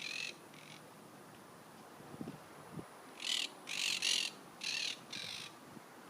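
Quaker parrots (monk parakeets) squawking harshly from a perched flock: a couple of calls at the start, then a run of four or five loud squawks from about three seconds in.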